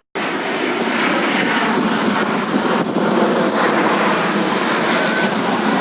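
Airplane on its landing approach passing low overhead, its engines giving a loud, steady rushing roar that cuts in abruptly right at the start.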